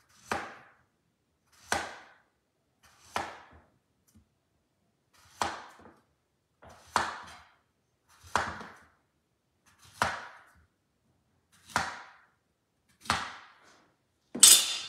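A kitchen knife chopping a peeled green plantain into thick rounds on a cutting board: about ten sharp knocks of the blade through the flesh onto the board, roughly one every one and a half seconds, with a louder knock near the end.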